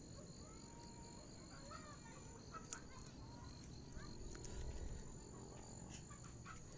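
Quiet outdoor ambience: a steady high-pitched insect drone with faint scattered bird chirps, over a low rumble of wind on the microphone.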